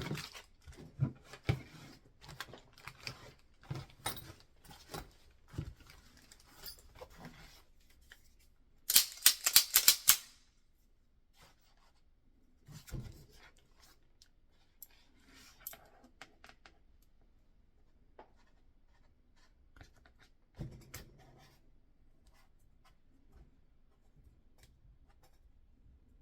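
Handling noises of a pistol being taken apart: scattered small clicks and scrapes of metal parts and tools, with a short run of rapid loud clicking about nine seconds in, then only occasional clicks.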